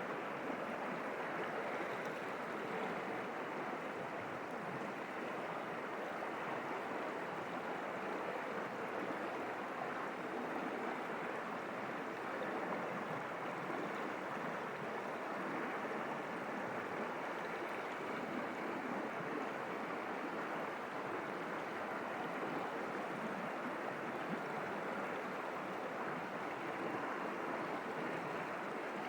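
Water of a small forest stream running over rocks: a steady, even rush of flowing water.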